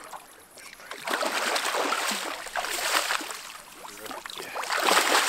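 A sturgeon thrashing at the surface while being landed, with heavy splashing that starts about a second in.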